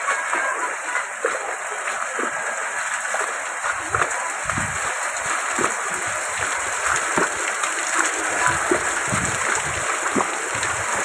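Wet outdoor water sound: a steady hiss with irregular splashes and drips, and scattered dull thumps of footsteps on a wet lane.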